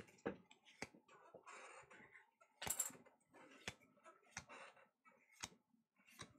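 Faint handling of Pokémon trading cards: soft clicks and light slides as cards are flipped one by one from the front of the stack to the back, with a slightly louder brush of cards about three seconds in.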